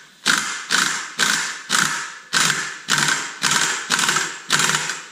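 Air impact wrench hammering a clutch puller into a Polaris snowmobile primary clutch in about ten short bursts, roughly two a second, forcing the clutch off its crankshaft taper.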